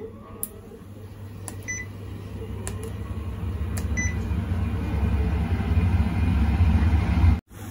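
Induction cooktop heating a stainless steel pot of water: a low electrical hum that grows steadily louder, with two short control-panel beeps about two and four seconds in as the power is set. The hum cuts off suddenly near the end.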